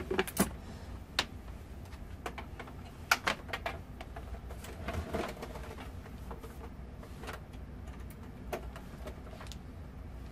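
Scattered light clicks and knocks from a Samsung computer monitor being handled and tilted on its stand while an HDMI cable is fitted into its back, most of them in the first few seconds.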